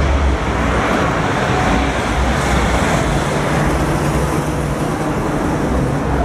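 Road traffic noise: passing vehicles giving a steady rush with a low engine rumble underneath.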